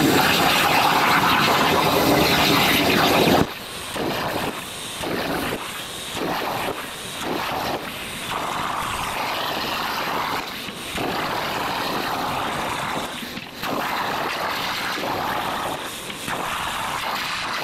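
CNC plasma cutter torch cutting steel plate, a loud steady hiss of the arc and air that cuts off abruptly about three seconds in. After that, quieter noise comes and goes in short stretches.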